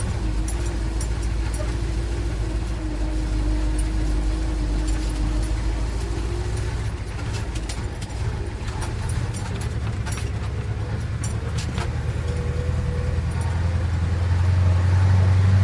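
Old truck engine running steadily, with scattered clicks and rattles over the low hum, getting louder in the last couple of seconds.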